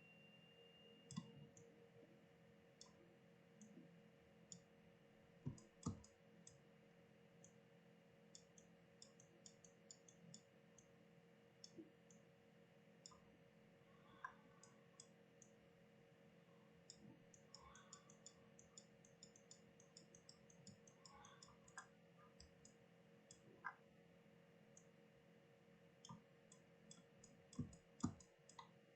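Faint, scattered clicks of a computer mouse and keyboard, sometimes in quick runs, over a steady low electrical hum.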